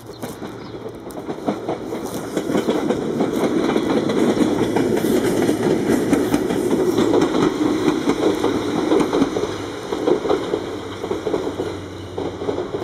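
A green Oigawa Railway electric train running past on the station tracks, its wheels clattering over the rail joints. It grows louder over the first few seconds and eases off near the end.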